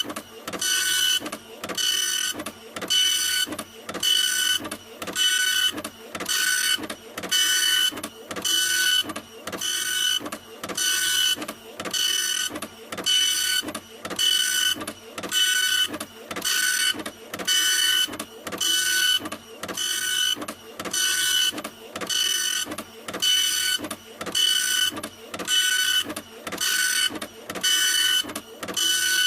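Printer running continuously, a fast, evenly repeating mechanical stroke with a whining tone in each pass.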